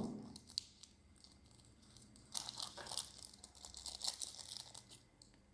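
Faint crinkling and rustling of plastic packaging being handled, coming in short spells from about two seconds in.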